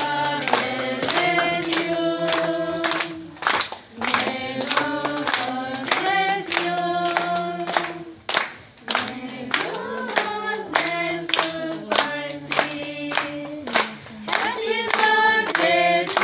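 A group of people singing a song together, with hand clapping along in time.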